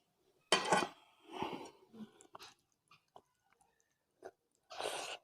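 Close-miked eating sounds of rice with curry: wet chewing and mouth smacks in a few short bursts, the loudest about half a second in, with small clicks between them.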